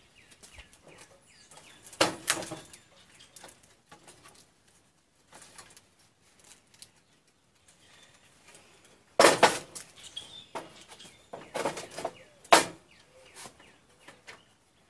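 Toaster's sheet-metal parts clanking and scraping as its inner slotted chassis is pulled out of the outer shell and handled. There are several sharp metal knocks with a short ring, the loudest about nine seconds in, and more near the end.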